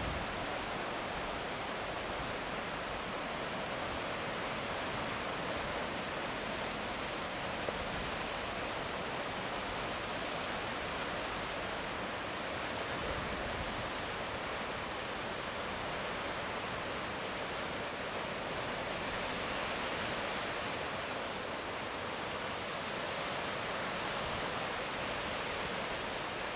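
Sea surf washing over rocks, a steady even hiss that swells gently now and then, with one brief click about eight seconds in.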